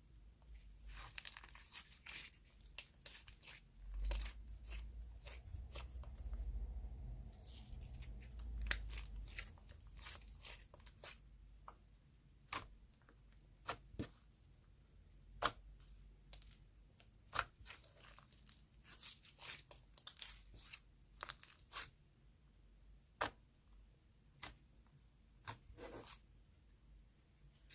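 Soft clay slime being stretched and pulled apart by hand: tearing and crackling sounds through the first half, then sharp little pops and clicks every second or so.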